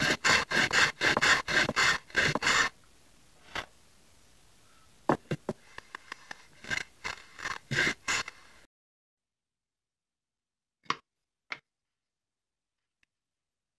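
Small Japanese hand plane taking quick short shaving strokes along the edge of a wooden box side, the joint being trimmed for a hidden dovetail. About eight strokes come fast in the first three seconds, then a few more spaced out until the strokes stop about 9 s in. Two light knocks follow near 11 s.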